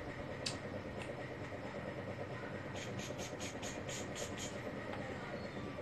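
Steady low rumbling background noise. Two short clicks come near the start, and a quick run of about eight light ticks comes past the middle.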